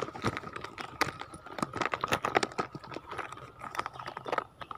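Irregular clicking, tapping and rattling of close handling as a snakehead is worked free of a frog lure with a homemade unhooking tool.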